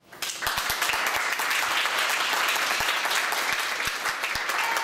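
Audience applauding: dense, steady clapping that rises within the first fraction of a second and keeps on at an even level.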